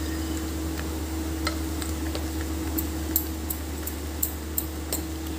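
A spoon stirring thick gram-flour and vegetable batter in a glass bowl, with scattered light clicks of the spoon against the glass. A steady low hum runs underneath.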